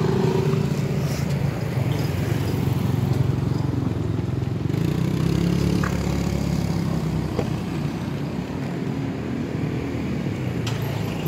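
Motor vehicle engine running steadily nearby: a low, even engine hum with a slowly shifting pitch.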